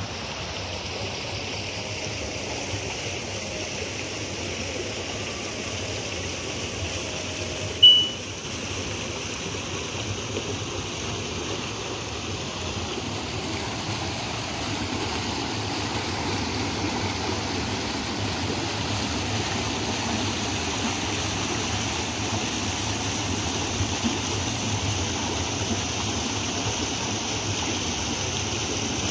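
River rapids rushing steadily over rocks, with one brief sharp sound about eight seconds in.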